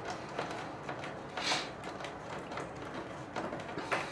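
Quiet hand work at a snowmobile battery terminal while the cable and bolt are taken off: a brief scrape about a second and a half in, and a few light metal clicks near the end.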